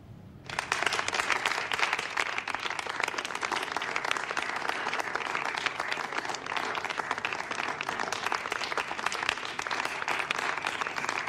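Audience applause that starts suddenly about half a second in and goes on steadily as dense clapping.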